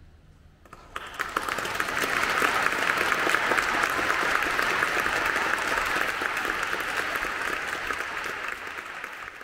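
Audience applauding: a quiet hush breaks about a second in into sustained, dense clapping from many hands, which begins to die down near the end.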